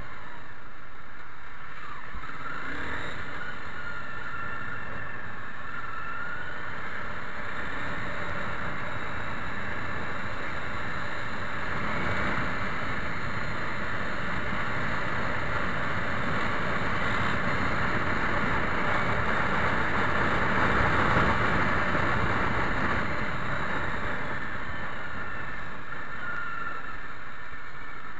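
Honda CBR250 motorcycle riding at road speed, its engine under a steady rush of wind on the microphone; the noise swells a little about three-quarters of the way through.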